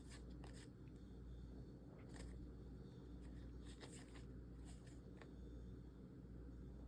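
Faint, scattered clicks and rustles of trading cards and booster-pack wrappers being handled, over a steady low room hum.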